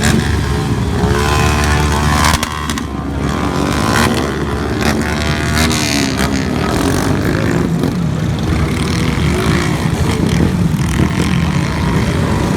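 Motorcycle engines running and revving up and down, with a drop in loudness about two and a half seconds in.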